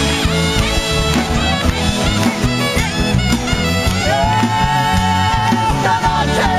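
Live band playing an instrumental passage: a steady bass and drum groove under a gliding lead melody that settles into one long held note about four seconds in.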